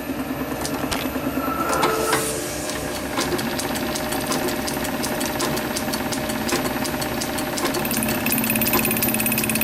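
Small metal lathe running, its four-jaw chuck starting to turn within the first few seconds, then a steady mechanical whir with a fast, even ticking from the drive.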